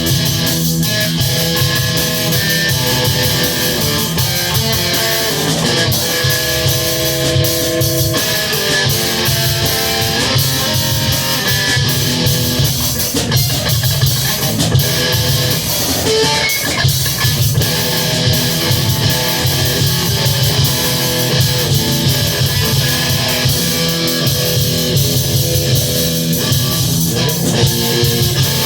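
Guitar and drum kit playing rock together, the guitar sustaining chords over a steady drum beat.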